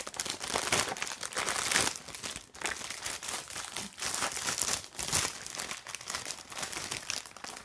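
Packaging being handled and torn open to get magazine issues out: irregular crinkling and rustling, with some tearing.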